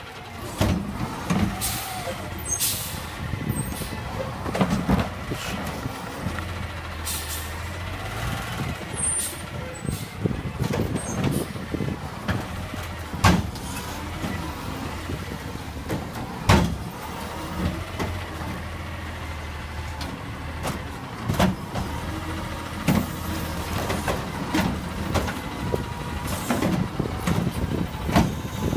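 Front-loading garbage truck with a carry can, its diesel engine running and rising at times as the hydraulics work. Sharp metal clanks and bangs come from the arm and can, the loudest two about 13 and 16 seconds in, with brief air hisses.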